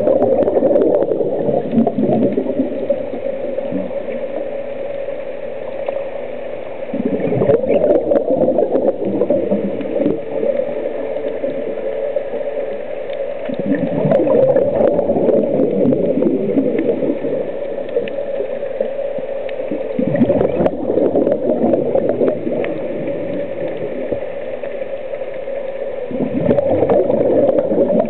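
Scuba regulator exhaust bubbling underwater: a gurgling rush of exhaled bubbles about every six or seven seconds, five times, with quieter stretches between and a steady low hum throughout.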